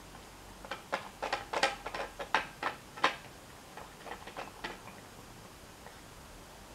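Cat crunching dry food: a quick, irregular run of crisp clicks lasting about four seconds, loudest in the middle, then stopping.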